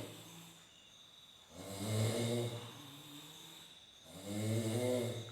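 A sleeping person snoring loudly, with a low, pitched snore about every two and a half seconds: two full snores, and the tail of another at the very start, with quieter breathing in between.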